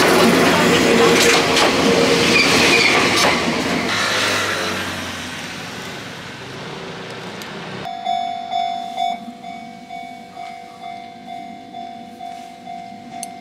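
An Enoden (Enoshima Electric Railway) train rattling past close by, its noise fading away over several seconds. About eight seconds in, a railway level-crossing bell starts ringing, one steady pitch struck about twice a second.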